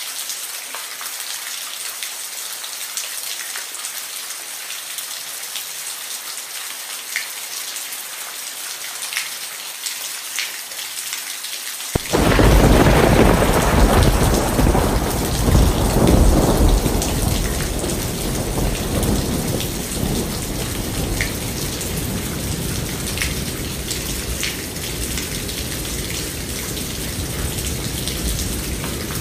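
Steady rain with scattered drips, then a sudden thunderclap about twelve seconds in. The clap is the loudest sound, and its deep rumble fades slowly back under the rain over the next several seconds.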